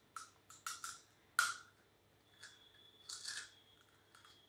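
Metal spoons clicking and scraping against bowls and crisp puri shells as pani puri are hurriedly filled with stuffing: a scatter of short taps and clicks, the loudest about one and a half seconds in.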